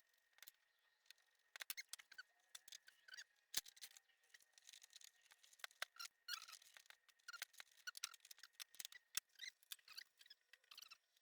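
Faint, irregular clicks, taps and short scrapes from the parts of a Cabin 1000A slide projector being handled and fitted back together.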